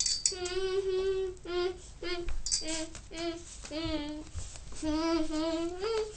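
A young child singing a wordless tune in held notes that step up and down in pitch, the longest note near the end.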